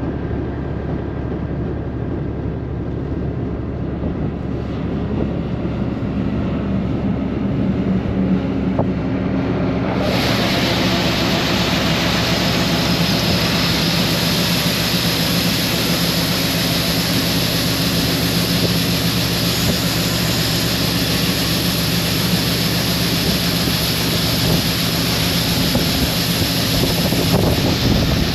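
A combine's diesel engine running steadily while it unloads corn into a semi's hopper-bottom trailer. From about ten seconds in a steady bright hiss joins the engine drone.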